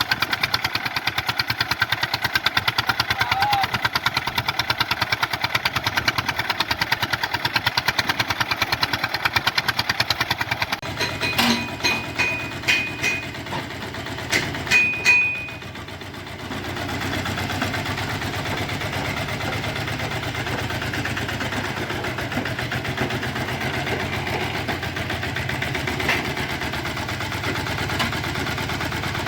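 Swaraj 855 tractor's three-cylinder diesel engine running with a fast, even beat. About 11 to 16 seconds in, a few sharp knocks and short high-pitched tones sound over it. After that the engine runs on more steadily and a little quieter.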